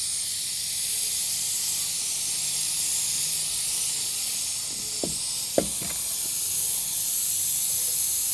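Steam hissing steadily out of a pressure cooker's valve as the weight is held up with a spoon, venting the pressure before the lid is opened. Two small metal knocks about five seconds in.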